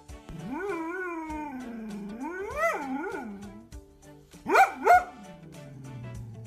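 A dog howling, its pitch rising and falling for about three seconds, then two short loud barks about four and a half seconds in, over background music with a steady beat.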